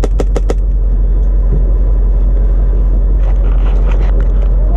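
Humvee's V8 diesel engine running, a steady low rumble heard from inside the vehicle. A quick run of about four sharp clicks comes right at the start.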